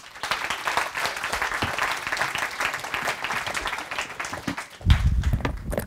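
Audience applauding at the end of a talk, dying away about four and a half seconds in. A loud low rumbling thump follows near the end.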